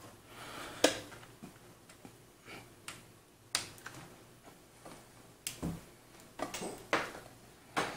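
A USB cable's plug being handled and pushed into a laptop's USB port: about half a dozen short, sharp clicks and light knocks, spaced a second or so apart.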